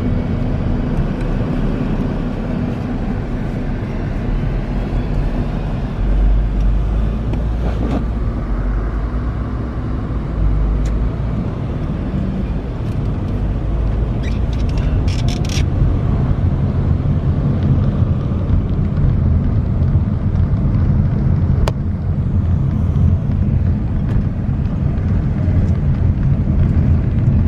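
Steady low rumble of engine and road noise from inside a moving car, with a few short clicks and ticks along the way.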